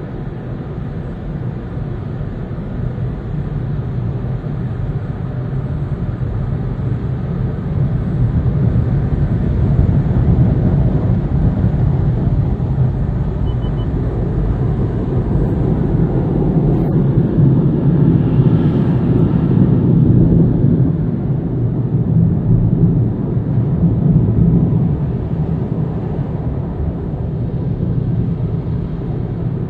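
Conveyor tunnel car wash heard from inside the car's cabin: a steady, muffled rumble of Sonny's wash equipment as the hanging cloth curtains and brushes work over the car with water spray. It grows louder over the first ten seconds or so as the cloth reaches the car.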